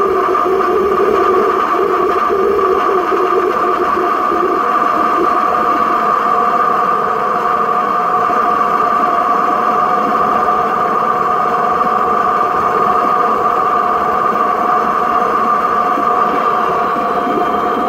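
Waste-oil burner firing steadily: a continuous rush of flame and air with several steady tones on top, and a lower hum that fades about five seconds in.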